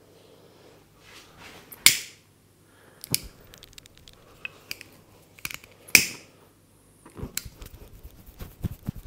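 Sharp hand strokes of a head massage: two loud smacks about two seconds and six seconds in, lighter slaps and snaps between them, and a quick run of light taps near the end.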